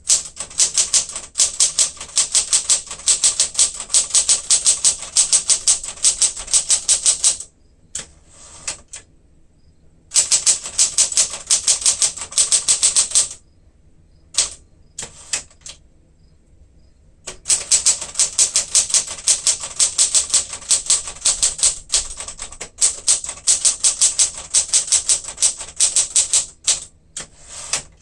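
1967 Smith-Corona Super Sterling manual typewriter being typed on with its touch selector set to low: runs of quick keystrokes, several a second, broken by pauses of a few seconds, with a few single strikes between the runs.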